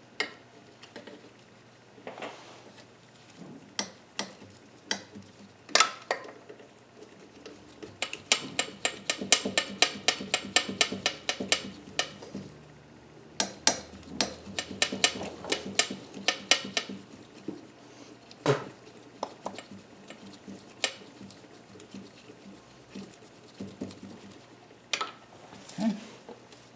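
Hand ratchet wrench clicking in two runs of quick, even clicks, among scattered metallic clinks and knocks of tools against engine parts.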